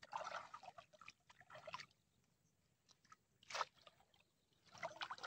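Faint, intermittent splashing and sloshing of shallow water around a person wading and pulling at a gill net, with a sharper splash about three and a half seconds in.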